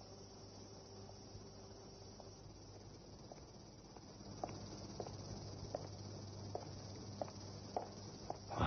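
Crickets chirring steadily as a high background drone. From about three seconds in, a man's footsteps on a paved path come in, a step roughly every half second.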